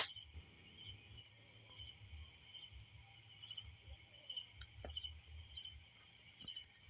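Night crickets chirping in short, evenly repeated pulses, about three a second, with a fainter second chirping series lower in pitch.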